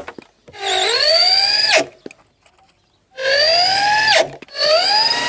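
Electric drill-driver run three times in short bursts, driving screws to tighten the speaker into the monitor cabinet. Each burst is a motor whine that rises in pitch, holds for about a second, then drops away as it stops.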